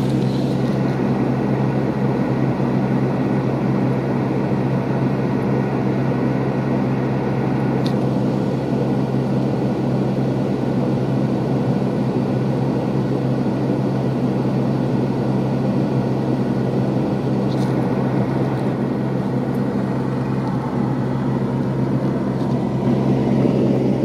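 Car engine idling, a steady low hum that holds one pitch throughout, with two faint ticks about a third and three-quarters of the way through.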